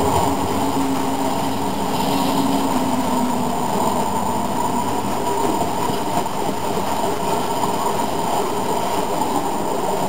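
HO scale model coal train with sound-equipped diesel locomotives running past. The locomotives' speaker engine hum fades out over the first few seconds as they move away, while the hopper cars keep up a steady rolling rumble on the track.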